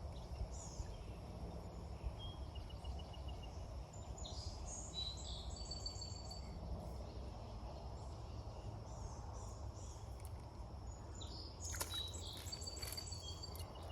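Wild birds singing short trills of rapidly repeated high notes, several times over, above a low steady outdoor rumble. A few sharp clicks come about twelve seconds in.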